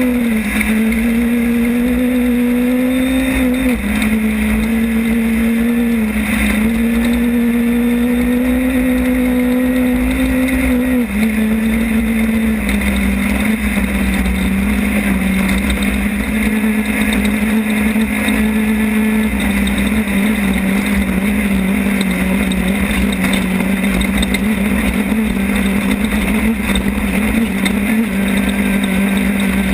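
Class 10 off-road race car's engine running hard at high, steady revs, heard from an onboard camera over a constant low rumble. Its pitch steps down a few times in the first twelve seconds, then holds steady.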